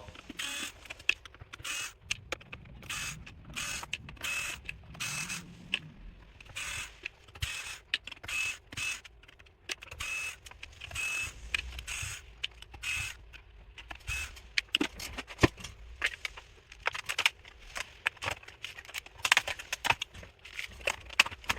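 Opening the underside of an MSI Katana 17 laptop: an irregular run of small clicks, scrapes and plastic snaps as the bottom panel's screws are worked loose and the cover is pried free. A few sharper snaps come in the second half.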